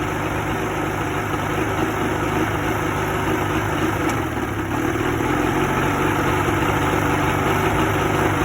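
1986 Evinrude 50 hp two-stroke outboard motor running steadily at idle, with an uneven, shaky beat from a misfire. It gets slightly louder about five seconds in.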